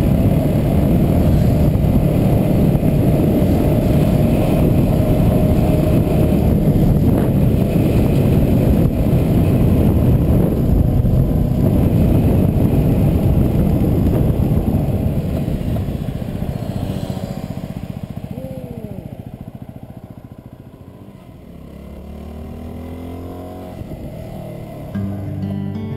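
Yamaha WR250R motorcycle's single-cylinder four-stroke engine running steadily, then fading away over the second half. Music comes in near the end.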